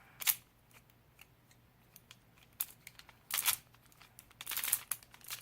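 A Rubik's-type twisty puzzle being turned by hand: short clicking, scraping turns of its layers in irregular spurts, with pauses between.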